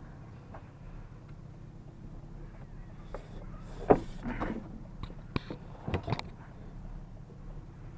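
A few sharp knocks and clanks over a steady low hum, the loudest about four seconds in and a quick cluster around six seconds.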